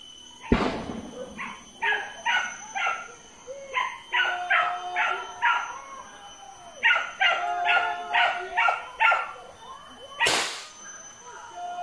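Hunting dogs barking in quick bouts of short barks, about three a second, as they work a wild boar. A single sharp bang sounds about half a second in, and a short rushing noise comes near the end.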